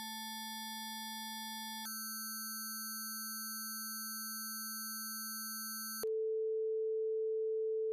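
Software oscillator in additive (Harmonics) mode holding one note: a steady synthesized tone with a sparse set of high overtones. Its timbre changes abruptly about two seconds in as the harmonics generator creates a new set of harmonics. It changes again about six seconds in to a plain pure tone an octave higher.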